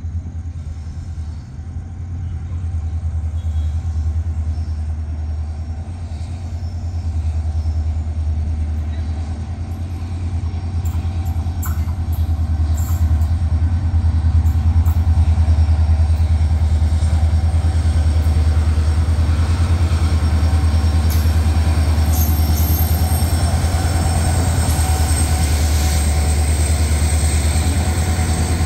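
Diesel locomotive hauling an automobile carrier train, approaching and passing close: a low engine rumble grows louder over the first half and stays loud as the locomotive goes by, with faint high wheel squeal coming in toward the end.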